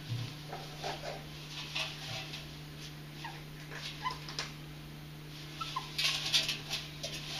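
Two pet ferrets play-fighting inside a front-loading washing machine drum: a few brief squeaks over the scratching and scrabbling of their claws on the drum, busiest about six seconds in.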